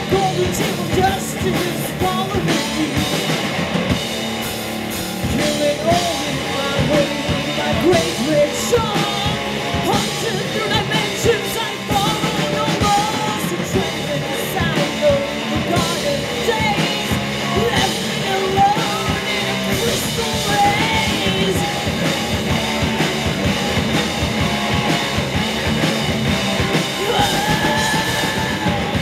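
Stoner rock band playing live: drum kit and instruments with a singer's vocals over them.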